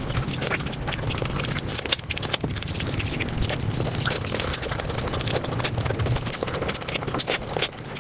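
Close-miked eating sounds played back at five times speed: chewing, smacking and handling of food blur into a dense, rapid crackle of clicks.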